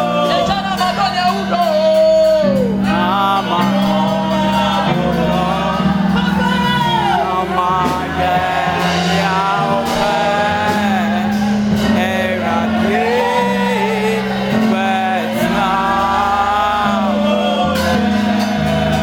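Gospel worship music: voices singing sliding, melismatic lines over an accompaniment of sustained low notes.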